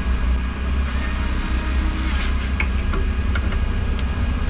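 Steady low rumbling hum with a few light clicks and two brief rustling scrapes of hand work, as small screws are fitted into an electric unicycle's housing.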